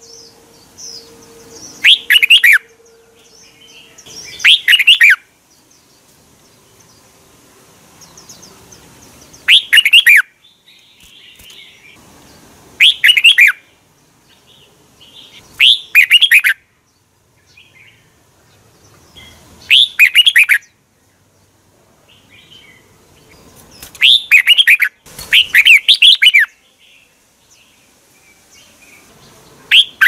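Red-whiskered bulbul singing: about eight loud, short phrases of quick whistled notes, each under a second, repeated every few seconds, with faint chirps between them.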